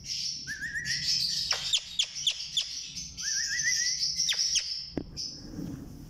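Pet Alexandrine and Indian ringneck parakeets chattering and calling: a continuous high, scratchy chatter, a run of short sharp calls in the middle, and twice a short rising warbled phrase.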